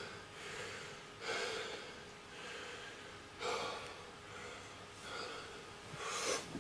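A man taking heavy, gasping breaths, several in a row a second or two apart, in pain from the burn of an extremely hot chilli extract sauce.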